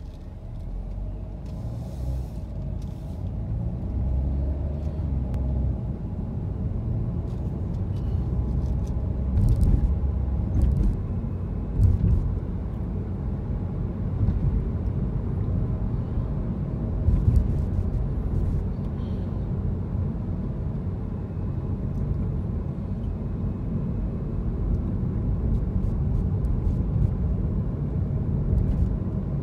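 Car driving along city streets: a steady low rumble of engine and tyre noise, swelling a few times, with scattered faint clicks and knocks.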